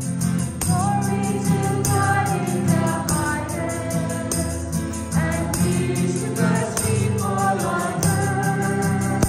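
Church choir singing with instrumental accompaniment and a steady percussive beat.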